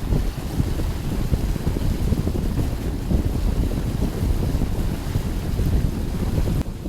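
Wind buffeting the microphone over the rush of water from a boat under way, a loud, uneven low rumble.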